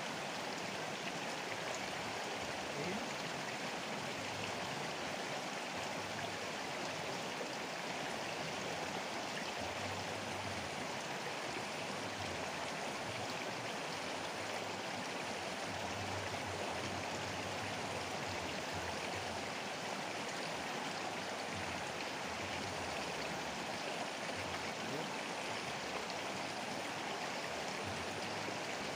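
A fast-flowing river running past: a steady, even wash of moving water.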